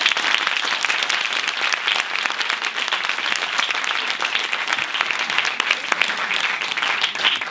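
Audience applauding: many people clapping steadily, dying away at the very end.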